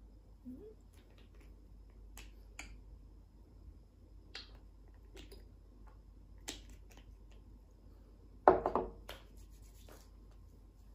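Scattered light clicks and taps of skincare bottles being handled, then about eight and a half seconds in a louder short clatter as a frosted glass dropper bottle is set down on the tabletop, followed by a few small ticks.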